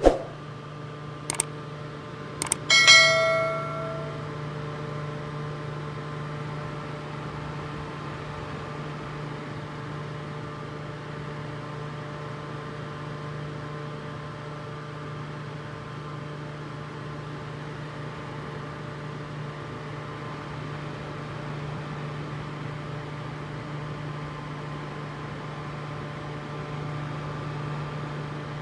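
Fan running with a steady hum. A few sharp clicks come about a second in, then a short metallic ring near the three-second mark dies away over about a second.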